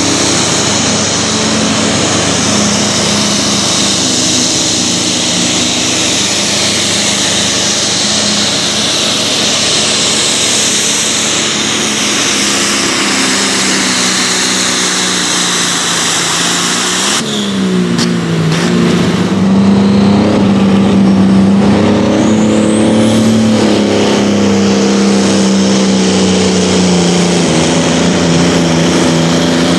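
Pulling tractor's engine running flat out while hauling a weight-transfer sled, a dense loud noise. About halfway through it cuts abruptly to another pulling tractor's engine, a clear low note that dips in pitch, then climbs and holds steady under load.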